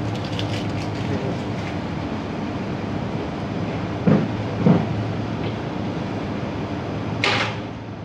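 Menumaster commercial microwave oven running with a steady hum. Two dull knocks come a little past the middle, and a short hiss near the end.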